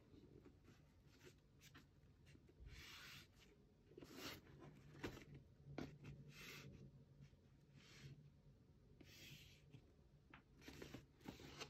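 Faint handling of a rigid cardboard goggle box: several soft rubs and scrapes of hands sliding over and turning the box, with a few light taps.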